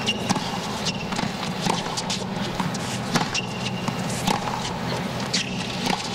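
Tennis rally on a hard court: sharp racket hits and ball bounces about once a second, with a few short high squeaks of shoes on the court and a steady crowd murmur underneath.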